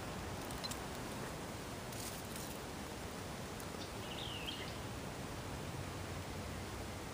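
Steady outdoor background noise with one short bird chirp about four seconds in and a few faint ticks.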